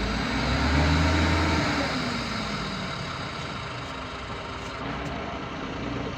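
Heavy diesel engine of a 12-wheeler dump truck reversing. It revs up during the first second or so, then eases back and runs steadily.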